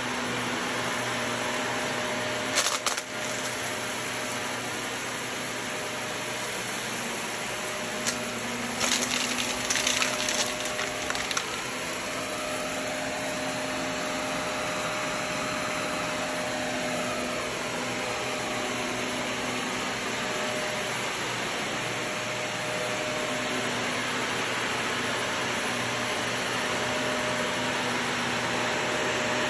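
Shark upright vacuum cleaner running steadily on carpet, with a faint steady hum over its airflow noise. Sharp crackles and clicks about three seconds in and again from about eight to eleven seconds as grit is sucked up into the dust cup.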